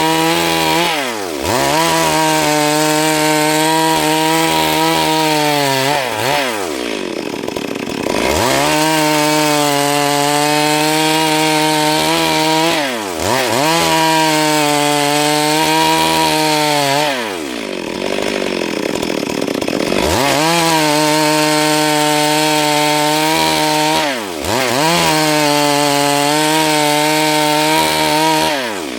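Stihl MS 382 two-stroke chainsaw running at full throttle, ripping Siris wood lengthwise into boards. About every five to six seconds the engine note falls off as the throttle is eased, then climbs back up, with a longer lower-revving stretch a little past the middle.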